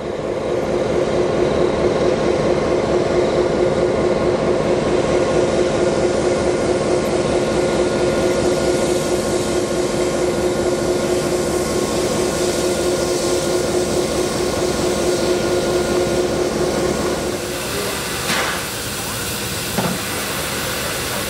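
Diesel locomotives 4201 and 4501 running with a steady droning engine note over a low rumble. About three-quarters of the way through, the drone gives way to softer steam hissing from steam locomotive 3801, with a short metallic knock near the end.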